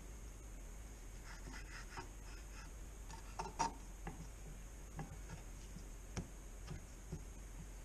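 Chef's knife cutting and scraping on a wooden cutting board while trimming fat from raw meat, with scattered light taps of the blade on the board, the loudest about three and a half seconds in.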